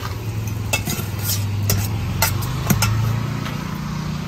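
A metal ladle clinks against a steel pot about six times as vegetable curry is scooped and served. Under it runs the steady low hum of an idling vehicle engine.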